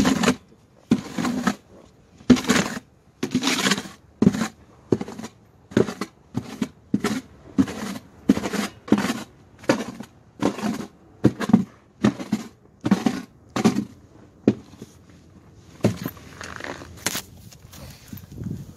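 Snow shovel scraping through snow on pavement in short, repeated strokes, about two a second, pausing briefly near the end before a few more strokes.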